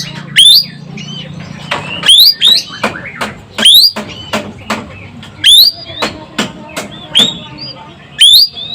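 Ekek keling calling continuously: loud, sharp notes that sweep upward in pitch, about one every second or so, with quick clicking notes between them.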